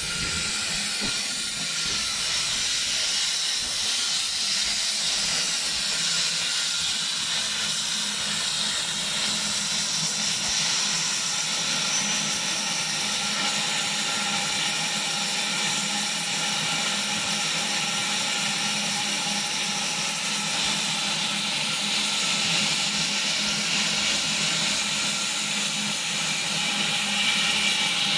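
A 100-year-old saddle-tank steam locomotive standing in steam, giving off a steady, continuous hiss of escaping steam, with a low steady hum underneath.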